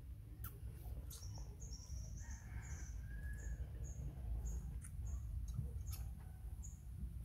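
A rooster crowing faintly, with short high chirps repeating about every half second over a steady low rumble.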